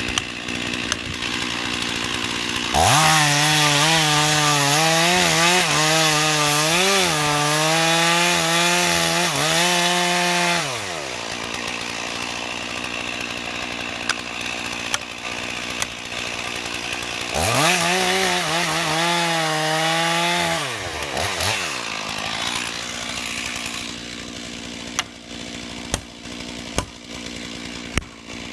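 Chainsaw idling, then revved up to full speed twice: once for about seven seconds and once for about three, its pitch wavering as it runs high, before dropping back to idle. Near the end there are a few sharp knocks.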